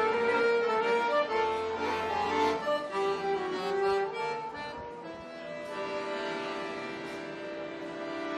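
Soprano saxophone and chromatic button accordion playing a tune together as a live duo. About halfway through the melody gives way to a long held chord.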